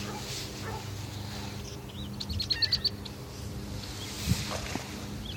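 A bird's quick run of about eight short, high chirps, a little over two seconds in, over a steady low hum, with a dull low thump about four seconds in.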